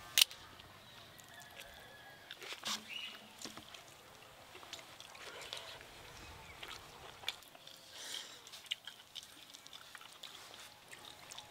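Faint rural outdoor ambience: scattered small clicks and rustles of people eating rice by hand off banana leaves, with a few short distant bird or animal calls about two to three seconds in.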